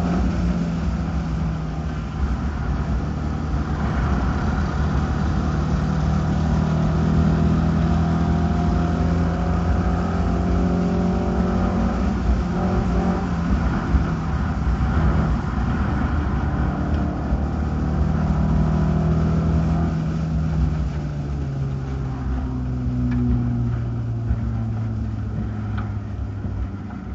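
Race car engine heard from an onboard camera, running hard and steady on the oval. Over the last several seconds its note falls steadily as the car slows.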